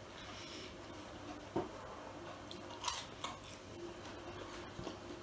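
Quiet eating sounds of French fries being picked from a glass bowl and chewed: a few short, sharp crunches and clicks, spaced a second or so apart.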